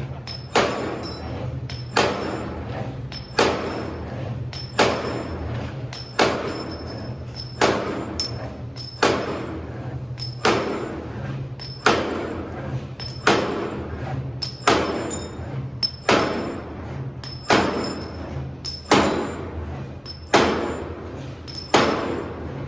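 Servo-type CNC wire straightening and cutting machine running: a steady low hum broken about every 1.4 seconds by a sharp metallic clack with a short ring as each length of 12 mm wire is cut off.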